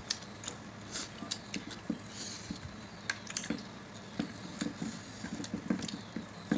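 Two people eating rice and chicken by hand: irregular chewing, mouth clicks and smacks, with soft squishes of fingers working rice on the plates.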